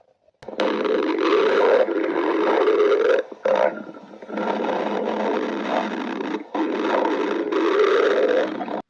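A hungry human stomach growling loudly in long, wavering rumbles, recorded close to the belly. It starts about half a second in, runs for over two seconds, breaks off, then rumbles again in longer stretches through to the end, with a short gap a little past the middle.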